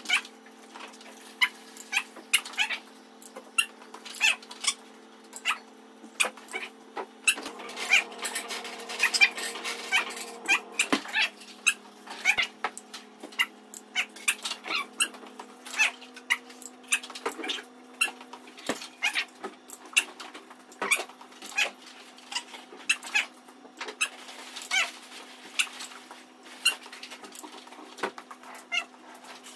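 Rapid, irregular clicks and taps of a small dog's claws on a hard floor and against a wire dog crate as the dog is walked in and out of it on a leash. Under them runs a steady low hum.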